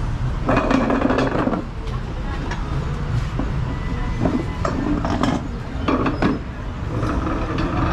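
Steady low rumble of a vehicle running, with short bursts of voices and rattling clatter over it.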